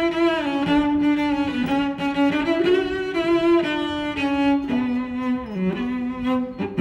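Background music: a slow melody on bowed strings, long held notes that step between pitches and sink lower near the end.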